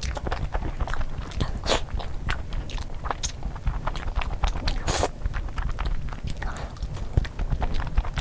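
Close-miked ASMR eating sounds of rice and curry: wet chewing and biting with many quick mouth clicks and smacks, over a steady low rumble.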